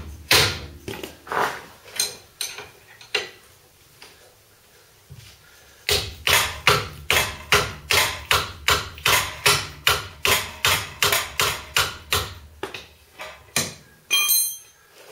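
Hammer blows on steel at a seized front radius-arm bolt: a few spaced strikes, then after a pause a steady run of about three blows a second, with a brief high metallic squeak near the end. The bolt is tight and will not turn.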